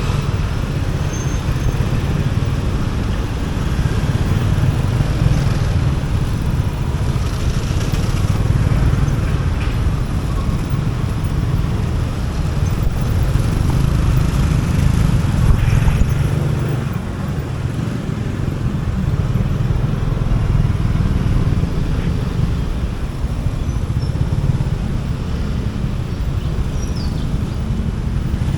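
Motorcycle running under way through city traffic: a steady, loud low-pitched engine and road noise that eases briefly partway through.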